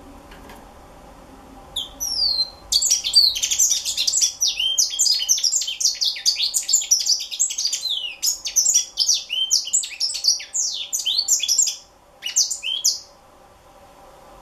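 Young African citril singing a long, fast song of high, varied twittering notes. It starts about two seconds in, breaks off briefly, then ends with a short last phrase near the end.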